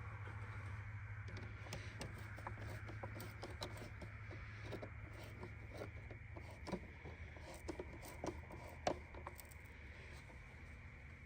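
Faint scattered clicks and scrapes of hand work under the hood, refitting the engine's air intake tube and its hose clamps. A low steady hum underneath fades out a little over half way through.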